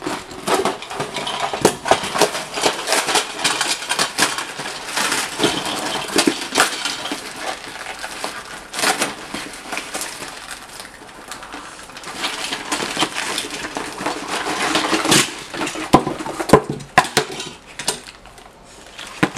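A cardboard box being slit open with a knife and pulled apart: scraping and tearing cardboard with many sharp knocks and clinks as bagged small plastic game parts are handled.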